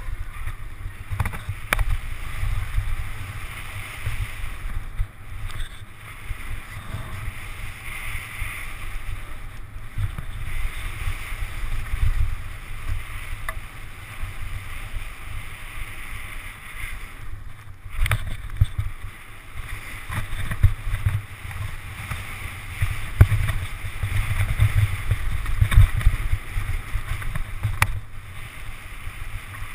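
Wind buffeting the microphone of a camera on a downhill mountain bike at speed, over the rolling noise of knobbly tyres on a dirt trail. Scattered short knocks and rattles come from the bike hitting bumps.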